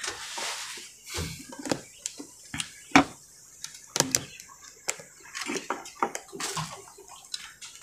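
Scattered light clicks and taps, the sharpest about three seconds in, over faint room noise.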